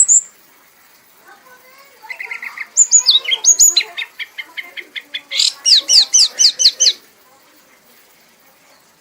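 Red kanis songbird singing a fast song for about five seconds: a short buzzy trill, then a rapid run of down-sweeping whistled notes, about six a second. A single high chirp sounds right at the start.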